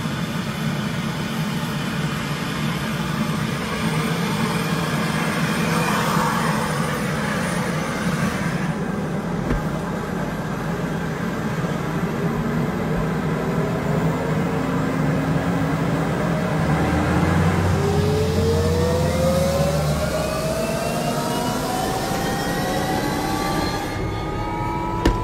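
Helicopter engine and main rotor running, heard from inside the cabin: a steady engine hum, joined from about two-thirds of the way through by a rising whine.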